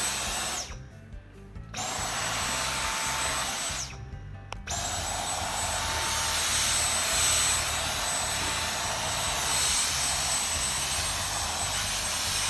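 Dyson V10 Fluffy cordless stick vacuum running with the small crevice tool, giving a steady airflow hiss over a high motor whine. Twice in the first five seconds it stops for about a second and starts again, the whine sinking as the motor spins down and rising as it spins back up.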